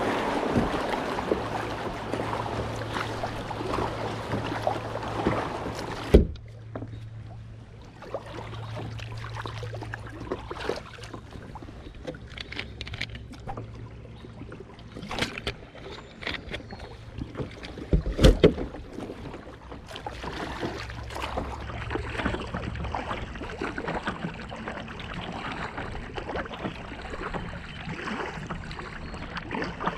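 Kayak on a shallow river: water rushing around the hull at first, cutting off abruptly about six seconds in to quieter lapping water and paddle splashes, with a couple of loud knocks about eighteen seconds in.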